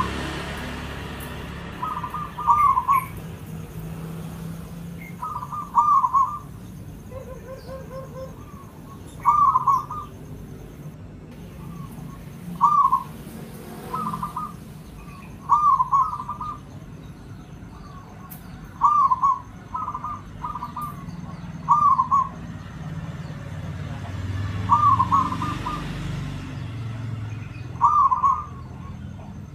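Zebra dove (perkutut) singing: short phrases of quick coos near one pitch, repeated every two to three seconds.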